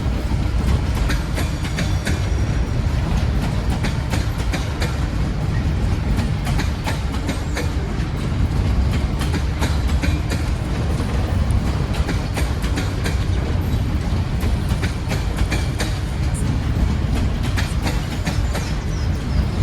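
Freight train rolling past: a steady low rumble with frequent clicks and clatter from the wheels on the rails.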